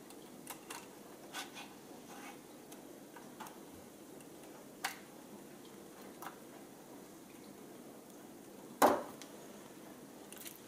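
Scattered light clicks and taps of small plastic and metal parts being handled while the shock absorbers are taken off a Traxxas Rustler RC truck, with one louder knock about nine seconds in.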